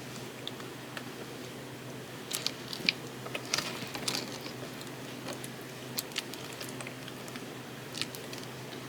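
Slime being handled and worked, giving scattered sticky clicks and crackles, thickest about two to four seconds in, over a steady low hum.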